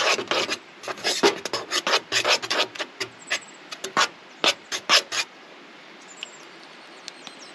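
A table knife scraping and stirring through dry flour in a metal pot, a quick run of short scraping strokes that stops about five seconds in.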